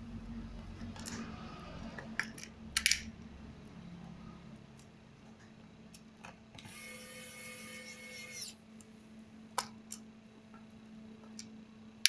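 Scattered clicks and knocks of a laptop's plastic bottom cover being handled and fitted back on, with a small electric screwdriver whirring for about two seconds midway.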